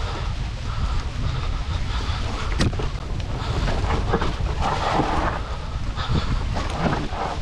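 Cube Stereo 120 Pro electric mountain bike riding fast down a dirt forest trail: wind buffets the microphone with a heavy rumble over the noise of the tyres on dirt and leaves. Scattered knocks and rattles come as the bike hits bumps, the sharpest about two and a half seconds in.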